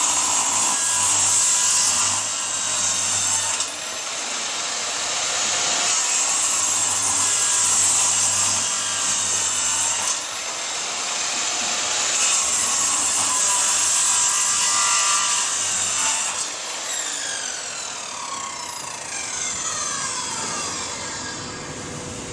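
Prescott PT0823505 corded circular saw running and cutting through a wooden board, the blade's loud hiss easing briefly between passes. About three quarters of the way in it is switched off and the motor winds down with a falling whine.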